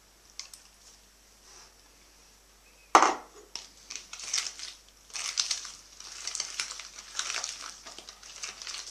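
An egg cracked against the bowl with one sharp knock about three seconds in, followed by irregular scraping and crackling in the bowl as the eggs are mixed into butter creamed with sugar.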